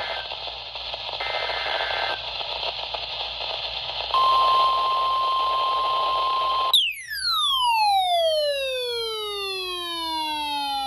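NOAA Weather Radio receiver hissing with static, then the steady single-pitch warning alarm tone starting about four seconds in, marking the start of a new marine warning. Near seven seconds the tone gives way to a set of tones sliding steeply down in pitch together for about four seconds.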